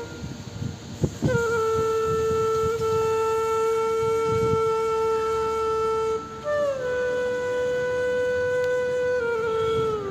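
A blown, horn-like tone sounding two long steady notes: the first lasts about five seconds, and after a short break the second comes in a little higher, then sags and falls away in pitch near the end.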